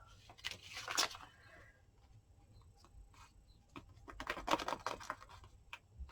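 Paper and card being handled on a craft table: rustling, scraping and light tapping in two bursts, about a second in and again around four to five seconds in.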